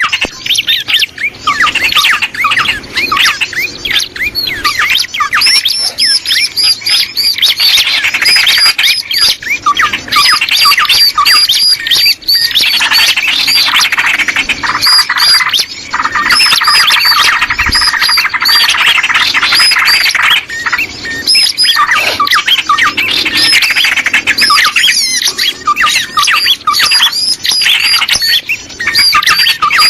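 Bird-lure recording of small birds calling: a loud, dense chorus of quick, squeaky chirps and twitters that overlap without pause.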